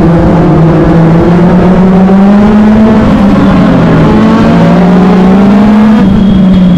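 Onboard sound of a Legend race car's Yamaha four-cylinder motorcycle engine running hard at racing speed, loud throughout. Its pitch climbs for about three seconds, dips around the middle, climbs again, then drops and falls off near the end.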